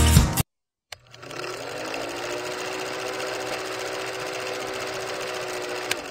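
Old film projector running, as a sound effect: it starts with a click about a second in, spins up, then runs at a steady whir. Another click comes near the end, and then it fades out.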